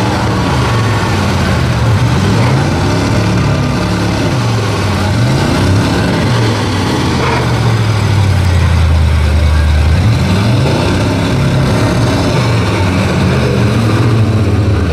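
Demolition derby cars' engines revving hard, several at once, their pitch rising and falling over and over as the cars accelerate and back off.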